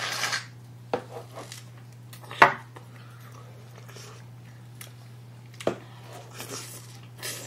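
An aerosol whipped-cream can hissing briefly at the start, then people biting into and chewing large strawberries, with a few sharp clicks and one loud knock about two and a half seconds in. A steady low hum underneath.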